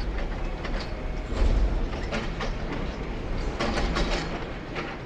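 Demolition excavator with a grab working over debris: irregular metallic clanks and knocks over a steady low rumble.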